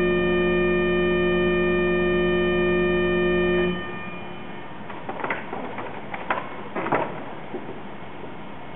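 Final chord of the 1860 Simmons & Wilcox pipe organ held steady with a low bass note, released about a third of the way in with a short reverberant decay. A few soft knocks follow in the quiet.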